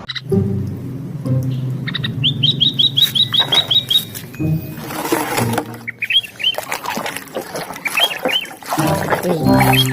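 Music with steady low notes, over quick, repeated rising chirps like bird calls, in runs of about four a second.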